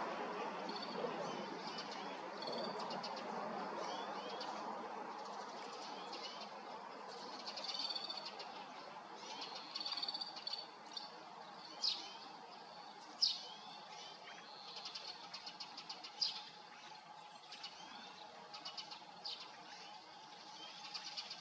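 Small songbirds chirping and twittering: short high whistles and trills repeat all through, with three sharper, louder chirps around the middle. A low steady rumble underneath fades over the first few seconds.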